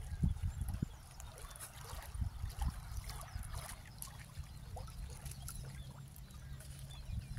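Small splashes and trickling of shallow water as a gill net is paid out into it by hand, loudest in the first second.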